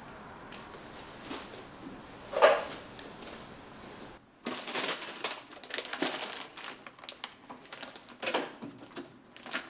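Bags and carried things being handled: cloth and plastic rustling and crinkling, with one sharp knock about two and a half seconds in. About halfway through comes a busy run of quick clicks and crinkles.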